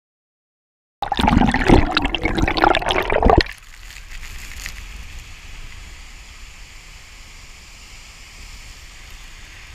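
Rushing water of a large waterfall, starting suddenly about a second in, loud and buffeting with low rumble for a couple of seconds, then settling to a steady, quieter hiss.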